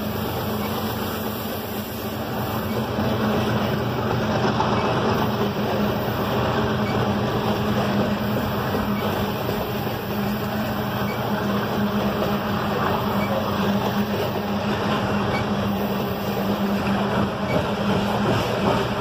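Open-top coal cars of a CSX coal train rolling past close by: a steady, unbroken noise of steel wheels running on the rails.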